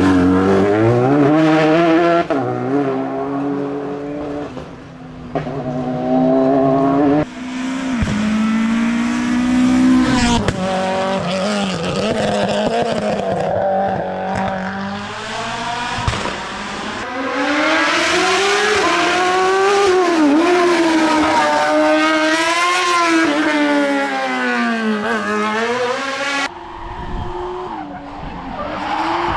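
Hill-climb race car engines revving hard, their pitch climbing and dropping again and again through gear changes and braking. Several separate runs follow one another with abrupt cuts between them.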